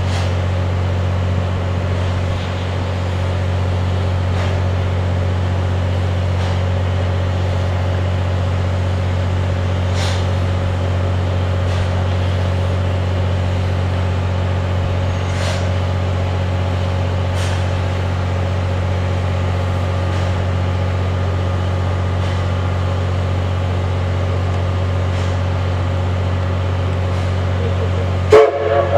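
A steady low mechanical hum from the standing C11 tank steam locomotive, with faint brief hisses or clicks now and then. Near the end its steam whistle starts to blow, loud and sudden.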